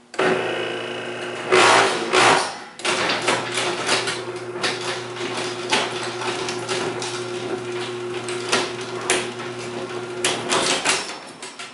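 Chamberlain garage door opener motor with stripped gears starting up and running with a steady hum, with a loud grinding noise about a second and a half in as the door is first lifted by hand: the motor is running in the closing direction against the door. Irregular clicks and rattles follow as the door goes up, and the motor stops near the end.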